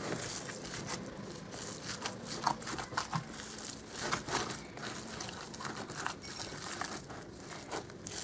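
Gloved hands kneading minced meat with chopped parsley in a bowl: irregular wet squishing of the meat mixture and crinkling of the disposable gloves.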